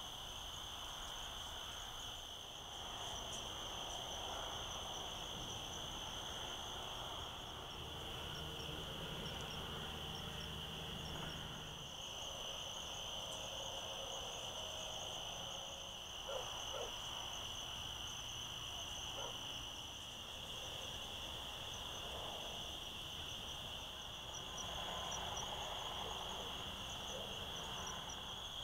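Night insect chorus of crickets: a steady, continuous chirring with a higher, pulsing trill above it.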